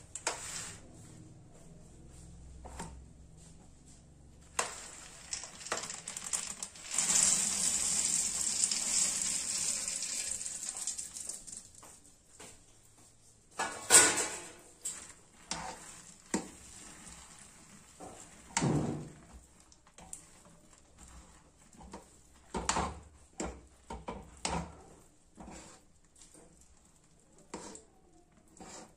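Peanuts tipped from a steel plate into hot jaggery syrup in a steel kadai, with a hiss of sizzling lasting several seconds. A loud metallic clank follows about halfway through, then a steel spoon knocks and scrapes against the pan as the thick peanut-and-jaggery mixture is stirred.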